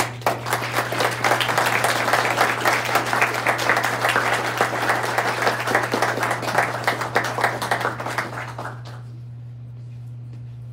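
Audience applauding, a dense patter of many hands clapping that dies away about nine seconds in.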